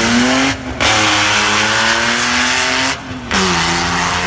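Car engine at full throttle accelerating down a drag strip, its pitch climbing, dropping briefly at an upshift about half a second in and again about three seconds in, then pulling on.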